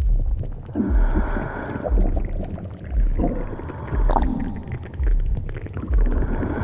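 Stomach growling: long gurgling rumbles with wavering, squeaky rises and falls in pitch, over a low pulse that comes about once a second.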